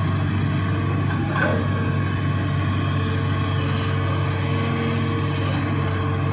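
Hitachi excavator's diesel engine running steadily with a constant low hum, and a brief higher squeak about a second and a half in.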